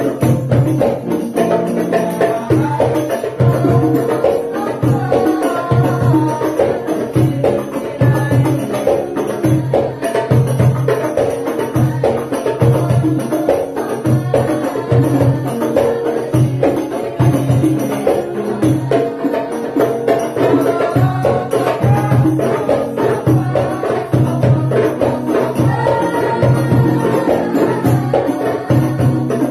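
Sholawat (Islamic devotional song) sung by a small group over hadroh percussion: frame drums (rebana) and a darbuka keep a steady beat, with keyboard accompaniment.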